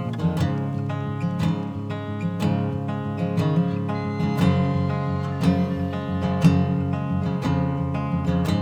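Acoustic guitar playing a song's intro, strummed or picked in an even rhythm of roughly one to two strokes a second with chords ringing on between them.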